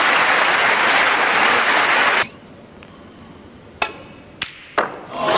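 Snooker audience applauding, cut off abruptly about two seconds in. In the quiet that follows come three sharp clicks of snooker balls being struck, and applause rises again near the end.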